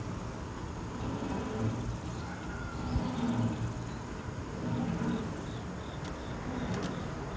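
Chairlift chair running along its haul cable past a lift tower: a steady low rumble and hiss, with a few light clicks about six seconds in.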